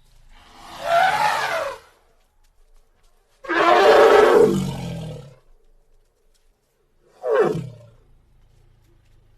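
Three roars, each a separate call. The second, about three and a half seconds in, is the loudest and longest, and its pitch falls. The last, near the end, is short and sweeps steeply downward.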